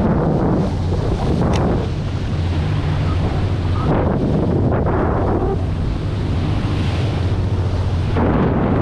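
Wind buffeting the microphone and water rushing off the bow of a moving boat, swelling and easing every few seconds, over the steady low hum of the boat's engine.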